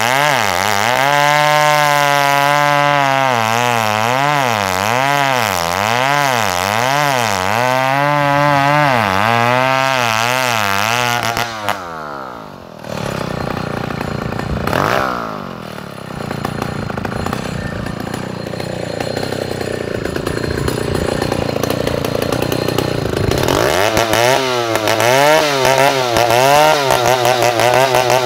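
Two-stroke chainsaw ripping a Bornean ironwood (ulin) log lengthwise, its engine pitch wavering up and down under load. About twelve seconds in it drops away briefly and runs rougher for a while. About twenty-four seconds in it climbs back to a steady high pitch as a new cut begins.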